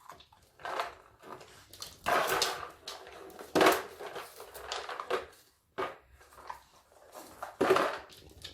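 Homemade plastic bottle treat toy filled with dry dog food, nudged and rolled about by a dog: kibble rattling inside and the plastic knocking and scraping in irregular bursts, about five of them.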